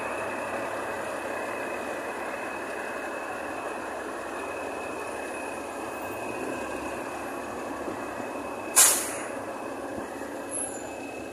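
Heavy road-paving machinery running steadily: the diesel engines of an asphalt paver and the trucks working with it, with a steady high whine in the mix. About nine seconds in there is one short, loud hiss.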